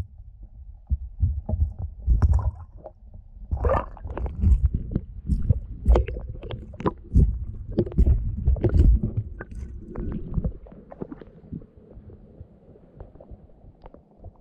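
Feet wading and stepping in shallow water, heard through an underwater action camera: irregular muffled thuds and splashes that thin out after about eleven seconds.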